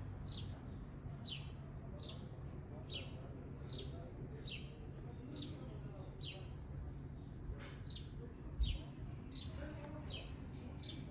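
A bird twittering, repeating one short downward-sliding whistle over and over at an even pace, about three notes every two seconds. A single low thump sounds a little past the middle.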